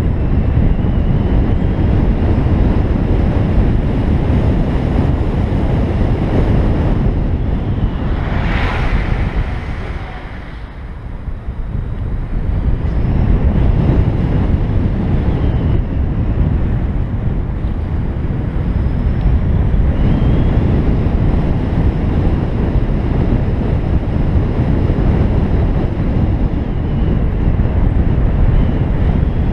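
Wind buffeting the microphone and tyre noise of a BMW i3s electric car driving along a winding road. A brief louder rush about eight seconds in is followed by a short lull.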